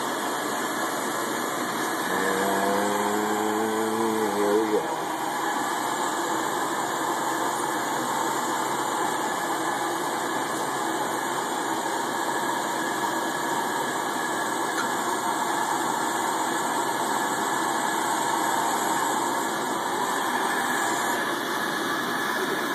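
Bethlehem Barracuda lampworking torch burning with a steady rushing hiss while borosilicate glass is heated in the flame. About two seconds in, a short pitched hum rises over it for a few seconds.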